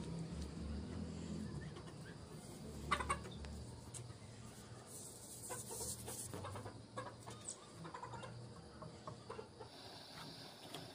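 Chickens clucking in the background, with a sharp knock about three seconds in and scattered clicks later from plastic pipe fittings and a plastic barrel being handled.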